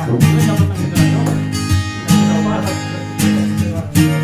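Background music: an acoustic guitar strumming chords, with a strong stroke about once a second.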